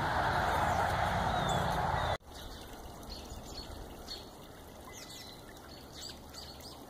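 A steady rustling hiss that cuts off abruptly about two seconds in, followed by a quieter stretch with small birds chirping faintly, short high calls several times.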